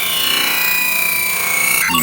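Electronic sound from live granular processing in ppooll: a steady hissing, droning texture with a sustained high tone. Near the end it breaks into choppy, stuttering fragments.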